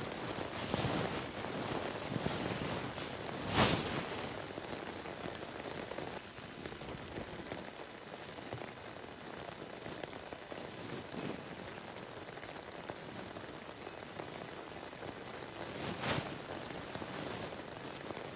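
Light rain falling steadily, with a few brief louder swells; the strongest comes about four seconds in.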